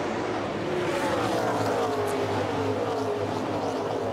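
A pack of NASCAR Cup stock cars running their V8 engines at full throttle at the start of the race. Cars pass the microphone one after another, each engine note falling in pitch as it goes by.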